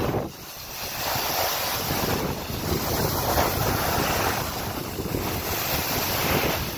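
Wind rushing over the microphone of a skier moving downhill, mixed with the steady hiss of skis sliding over packed snow; it drops away briefly in the first second.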